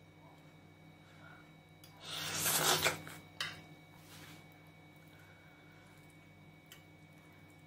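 A person slurping curry noodles off a fork: one slurp about a second long, starting about two seconds in, then a short mouth sound soon after.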